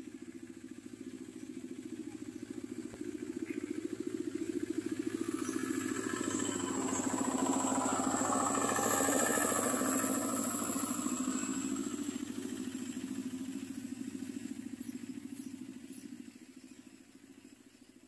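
A motorcycle passing by, its engine rising to a peak about halfway through and then fading away.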